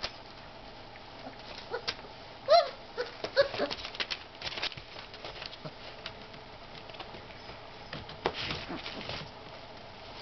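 Basset hound puppies moving about the pen, their claws clicking and scrabbling on newspaper and the plastic gate, with a few short high puppy cries about two and a half to three and a half seconds in. There is a burst of scratching and rustling about eight seconds in.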